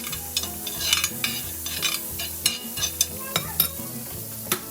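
Butter sizzling on a hot sizzling plate, with a dozen or so sharp clicks and scrapes of a utensil moving it around the metal.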